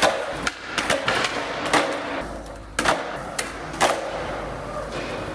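Skateboard wheels rolling on smooth concrete, with about eight sharp clacks of the board's tail popping and the deck and wheels slapping down on landings, most of them in the first two seconds.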